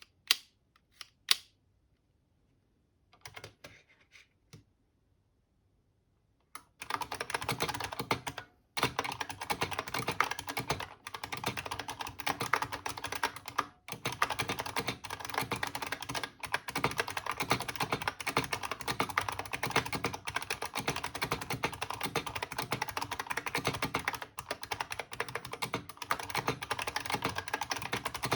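IBM Model M buckling-spring keyboard from 1988: a few separate sharp clicks, then, about seven seconds in, fast continuous typing, each keystroke a loud click-clack, with only brief pauses. The keyboard is working perfectly.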